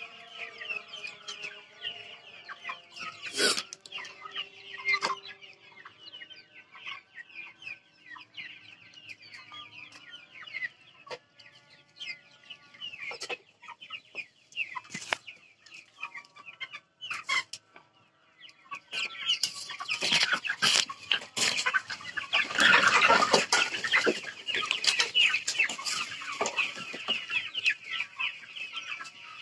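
A large flock of Vanaraja chickens clucking and chirping together, with scattered light knocks. The calling grows louder and denser about two-thirds of the way through.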